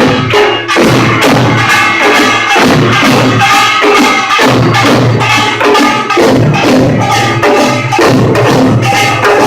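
Korean pungmul percussion ensemble playing a fast rhythm: metal gongs clanging with ringing tones over thudding drums, struck many times a second. Loud and harsh, as recorded through a phone's microphone.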